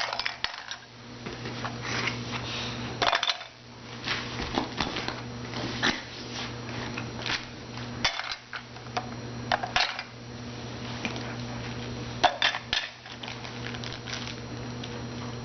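Toy puzzle pieces clicking and clattering as they are handled and dropped into the toy's bucket: scattered short knocks all through, over a steady low hum.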